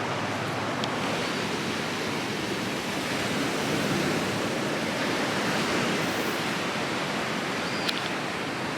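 Steady rushing outdoor noise, an even wash that swells slightly in the middle, with a faint tick or two.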